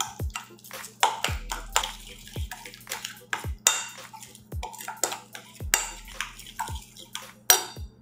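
A metal spoon stirring a thick sauce in a ceramic bowl, clinking and scraping against the bowl in quick, irregular strokes. Under it a faint low tone slides downward in pitch about once a second.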